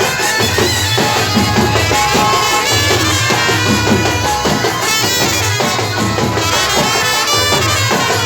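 Village band music: melody instruments play over a steady, repeating drum beat.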